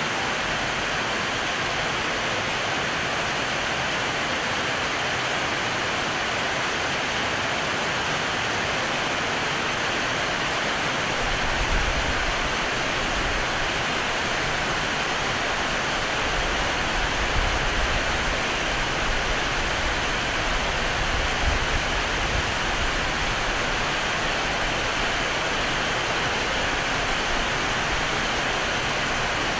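Heavy rain falling steadily on corrugated sheet roofs and tiles, with water pouring off the roof edges: a dense, even hiss. Low rumbles come and go from about a third of the way through.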